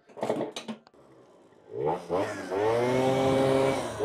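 Zip scooter's small engine revving up from about two seconds in, climbing and then holding high revs as it pulls away on a test ride with a smaller main jet fitted. It revs too high under way, which is a sign that the variator rollers are too light.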